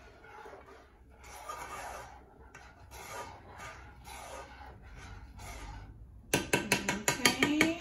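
A metal spoon stirring thick sauce in a saucepan, a soft rasping scrape with each stroke. About six seconds in come sharp, loud clattering knocks with a metallic ring as the spoon strikes the pot.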